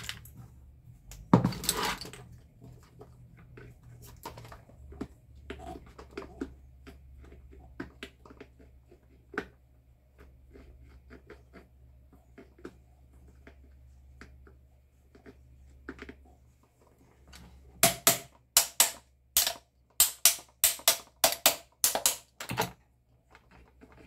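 Sharp metallic taps on a small table-fan motor: one knock about a second and a half in, scattered light clicks, then about a dozen quick taps near the end. These fit a screwdriver striking the motor shaft to centre it in its bushings.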